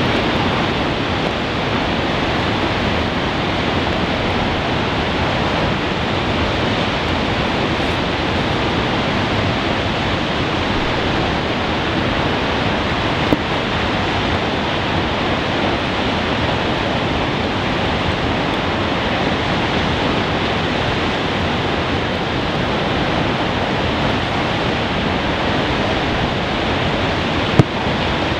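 Steady roar of rushing water from flash-flooding streams and rain-fed waterfalls, even and unchanging throughout, with two faint clicks, one about halfway through and one near the end.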